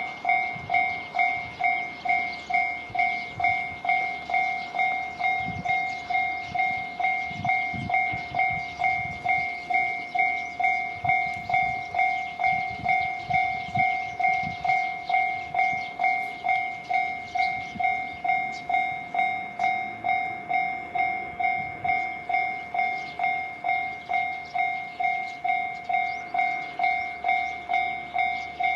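Japanese level crossing's electronic warning bell ringing steadily, a two-tone ding just under twice a second. In the middle of the ring a train rumbles and clacks past over the crossing for several seconds.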